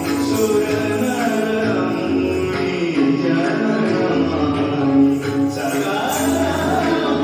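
Devotional song to the goddess Durga, sung over instrumental accompaniment, for a Kathak dance, with a sharp hit about five seconds in.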